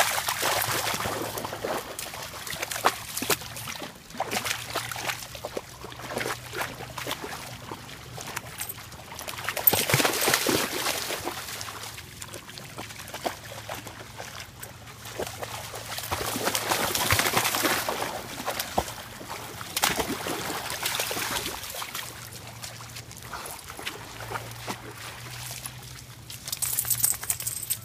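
A dog wading and splashing through a shallow river, water sloshing around its legs in uneven surges over the steady trickle of the flowing river.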